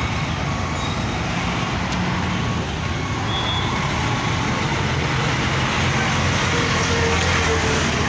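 A heavy vehicle engine running steadily amid city traffic noise, getting a little louder a few seconds in.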